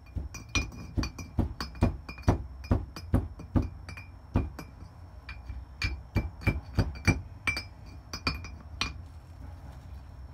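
Hammer striking a BMW E46 330Ci brake caliper over and over, about two to three sharp metallic knocks a second with a short ring after each. The knocks drive a tight-fitting part into the caliper, and they stop about nine seconds in.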